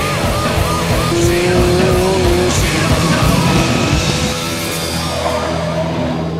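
Soundtrack music mixed with vehicle engines and squealing tyres from motorcycles and a car being driven hard. There are wavering squeal-like tones in the first half.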